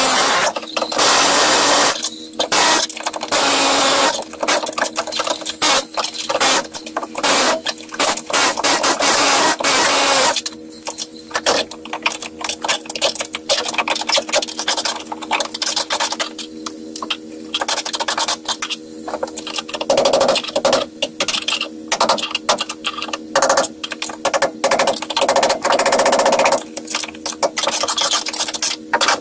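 Cordless drill spinning a socket on a bolt, its small electric motor whirring in repeated on-and-off bursts with a steady hum underneath.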